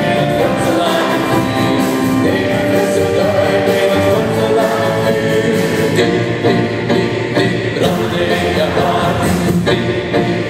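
Live band music with keyboard and drums, with a crowd of voices singing along.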